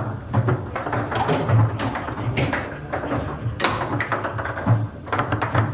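Table football play: an irregular run of sharp knocks, several a second, as the ball is struck by the rod-mounted players and hits the table walls, with a few louder shots.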